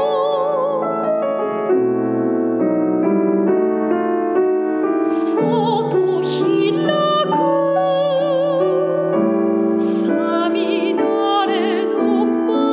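Soprano singing a Japanese art song in a classical style with wide vibrato on held notes, over piano accompaniment.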